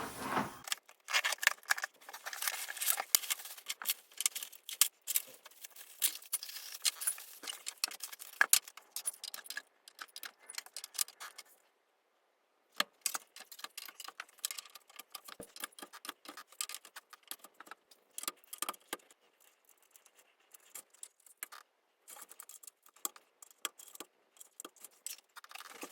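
Parts of a slim rolling storage cart being unpacked and handled: a busy run of clicks, clinks and rattles of hard pieces knocking together, with some rustling. It cuts out for about a second near the middle, then resumes with sparser clicks.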